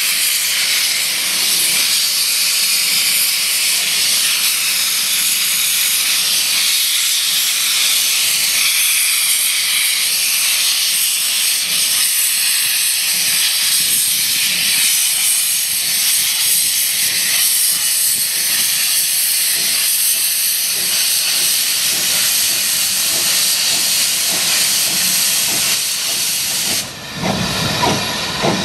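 Steady, loud steam hiss from the open cylinder drain cocks of the industrial 0-6-0 tank locomotive Nunlow as it moves slowly. Near the end the hiss drops away and the first exhaust beats are heard.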